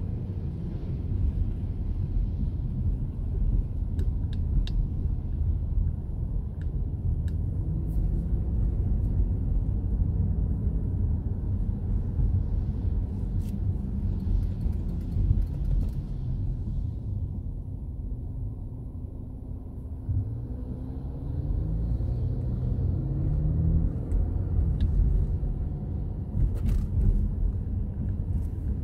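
Road noise inside a moving car's cabin on a wet road: a steady low rumble of engine and tyres with a hiss of tyres on wet pavement. The hiss drops away a little past halfway as the car slows, then returns while the engine pitch rises as it speeds up again. A few faint clicks are scattered through.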